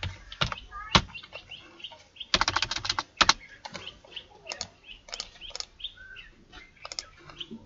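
Computer keyboard typing: scattered keystrokes with a quick run of key clicks about two and a half seconds in. Small birds chirp in the background.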